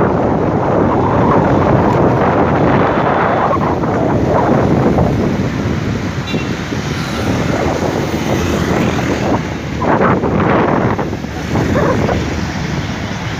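Wind buffeting the microphone of a phone filming from a moving vehicle, over the vehicle's running and road noise.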